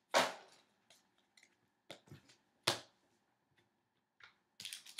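A few sharp clicks and taps of trading cards being handled, the loudest just after the start and about two and a half seconds later, then crinkling of a card pack wrapper beginning near the end.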